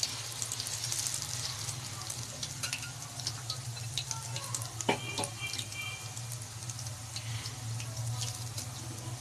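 Chicken pieces in a gram-flour masala coating deep-frying in hot oil in a karahi: a steady sizzle full of small crackling pops, while a spoon stirs and turns the pieces. A sharp knock stands out about five seconds in.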